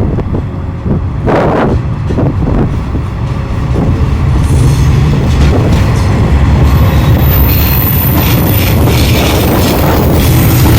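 A four-car JR West 381 series electric train pulling away and gathering speed, with a few wheel knocks over rail joints early on and a low running rumble that grows louder from about four seconds in.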